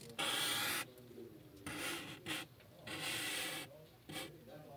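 A pen scratching across paper in several short drawing strokes, each about half a second long, with brief pauses between them.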